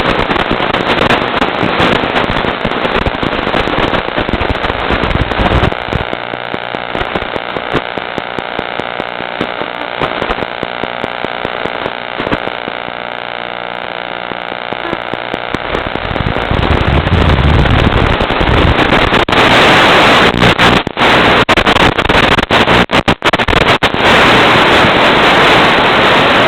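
Loud crackling static from a Nano QX FPV micro quadcopter flight recording. Through the middle stretch a steady hum of several even tones sits under the crackle and then fades out. Near the end the crackle grows louder, with a few sudden dropouts.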